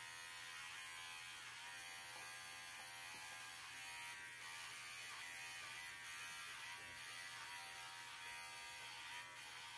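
Cordless Arco pet clipper running steadily, shaving a standard poodle's coat around the base of the tail. A steady electric buzz, wavering slightly as the blade works through the hair.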